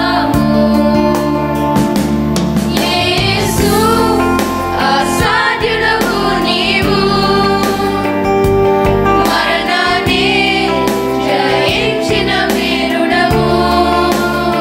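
Group of children singing a Christian song together, with steady instrumental accompaniment underneath.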